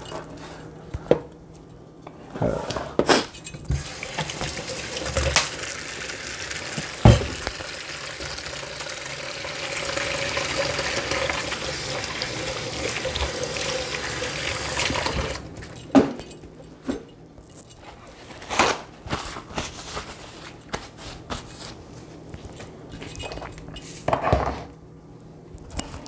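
Kitchen tap running for about twelve seconds, then cutting off, with sharp knocks and clatters of pans before and after it.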